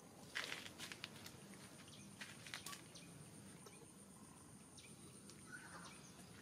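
Faint outdoor quiet with a steady high insect whine, and a few light taps and clicks from a baby macaque's hands and feet on wooden boards in the first three seconds. A short squeak sounds near the end.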